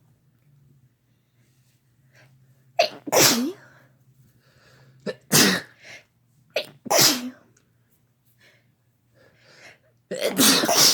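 A person sneezing four times, about two seconds apart. Each sneeze is a quick sharp catch of breath followed by a loud burst, and the last, near the end, is the longest.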